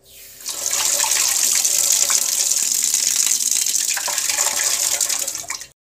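Water tap turned on, running in a steady stream and splashing over a forearm. It swells up within the first half-second and stops abruptly near the end.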